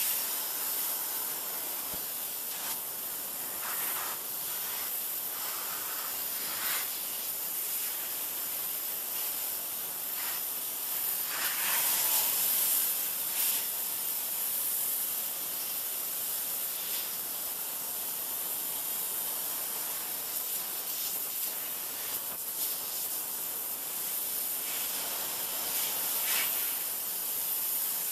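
Steady hiss of a 3000 psi pressure-washer jet spraying a plastic chair, swelling briefly a few times as the stream moves over the surface. It is heard thinly through a camcorder microphone that has cut out, so the washer's engine does not come through.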